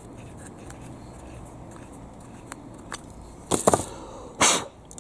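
A few faint clicks from hand-tapping a thread, then a small metal T-handle tap wrench set down on a wooden table, clattering several times about three and a half seconds in, followed by a short louder knock and rustle about a second later.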